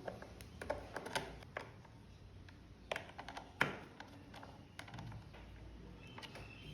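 Irregular light clicks and taps of small hard parts being handled, with a few sharper knocks.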